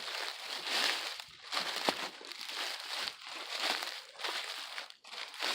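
Footsteps crunching through dry leaves and brush at a walking pace, about one step a second, with a sharp snap about two seconds in.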